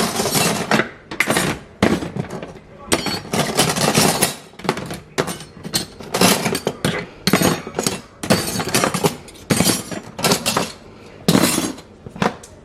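Dishes, glasses and cutlery clinking and clattering together in a series of irregular knocks, as they are handled while washing up at a sink.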